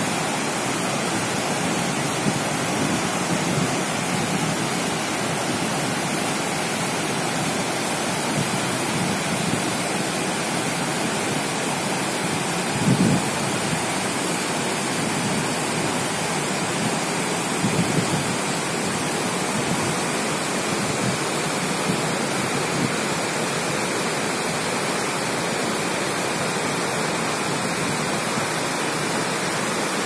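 Waterfall cascading over rock ledges into a pool: a steady, even rush of falling water. A couple of brief low bumps stand out about halfway through.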